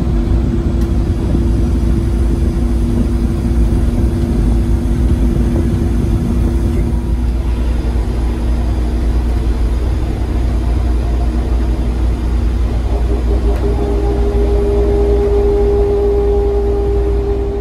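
Newark AirTrain monorail running, a loud steady rumble with an electric motor whine. A higher whine joins near the end.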